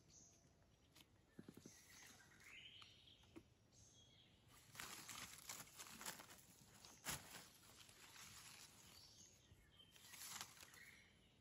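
Faint rustling and scraping in dry leaf litter as mushrooms are cut from the ground and their stems trimmed with a small knife, with a sharp click about seven seconds in. Faint bird chirps come through about three seconds in and near the end.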